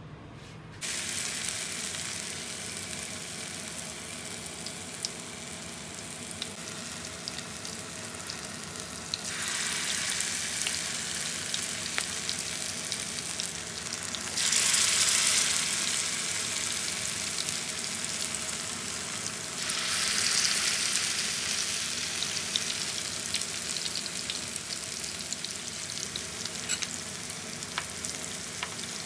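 Skinless chicken longganisa sizzling as it fries in hot oil in a pan. The sizzle starts suddenly about a second in and surges louder three times, about a third of the way through, halfway, and two-thirds through, easing back after each.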